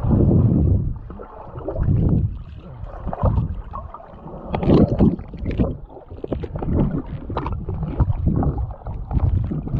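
Water splashing and sloshing close to the microphone, in irregular deep surges every second or two with small splashy clicks.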